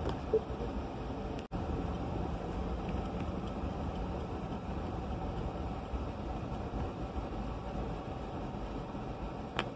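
Steady vehicle cabin noise while driving slowly on a gravel road: low engine hum with tyre rumble on the gravel, a short knock just after the start and a brief dropout about a second and a half in.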